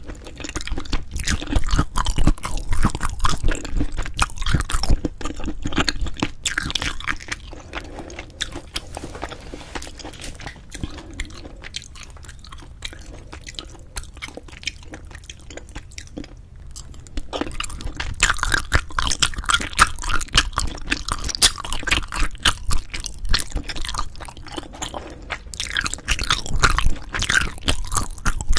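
Close-miked chewing of cheese-topped braised spicy chicken (jjimdak), with wet, sticky mouth sounds and occasional crunchy bites. The chewing is louder for the first few seconds, quieter in the middle stretch and louder again for the last ten seconds or so.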